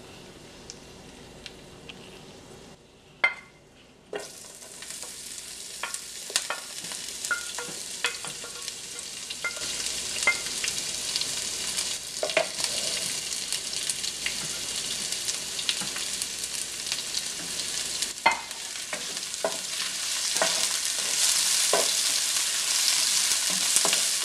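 Sliced onions sizzling in hot oil in a nonstick frying pan over high heat, stirred with a wooden spatula that knocks against the pan now and then. The first few seconds are quieter, with a few ticks from the spices in the oil; about four seconds in the sizzle jumps up as the onions go in, and it grows louder toward the end.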